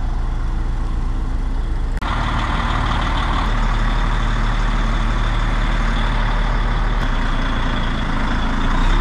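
Heavy lorry's diesel engine running close by. About two seconds in, the sound steps up to a fuller, noisier run with more hiss.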